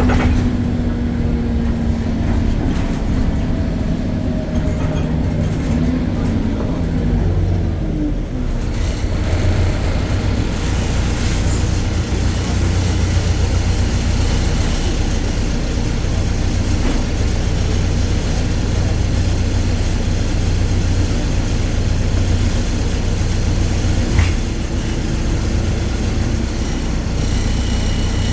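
BredaMenarini Avancity Plus city bus under way, its Deutz diesel engine and drivetrain running with a steady low drone. A couple of steady tones slide down and fade out about eight seconds in, leaving a broader rumble and road hiss, with a single short knock near the end.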